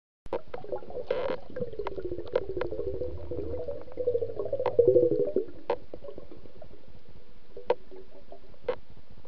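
Underwater sound from a camera submerged in a murky river: a warbling mid-pitched hum of moving water with a low rumble, and sharp clicks and knocks scattered throughout. It starts abruptly just after the beginning and swells louder near the middle.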